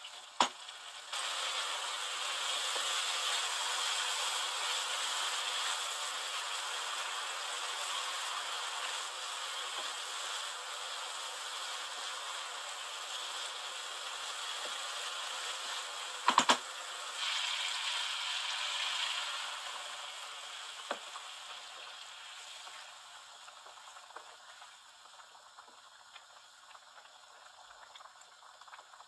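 Fish pieces in onion-tomato masala sizzling in a wok, with a sharp knock of the wooden stirring spoon against the pan about halfway through. The sizzle dies down after about twenty seconds to a quiet simmer once water is in the curry.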